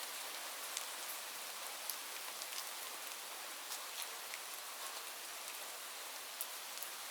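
Steady rain, a soft even hiss with scattered sharper ticks of individual drops landing.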